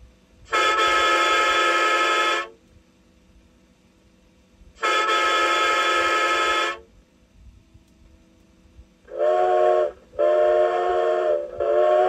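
Recorded train and boat horn sounds played from a CB radio sound-effects module through a small test speaker: two long, high-pitched horn blasts, then about nine seconds in a lower-pitched horn sounding a short blast, a longer one, and a third that carries on.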